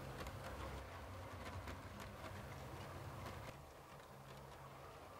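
OO-gauge model train running on track: the Hornby Class 37 locomotive's motor hums steadily while its wheels and those of the Mk1 coaches click over the rail joints. It is louder for the first few seconds, then fainter as the train moves on.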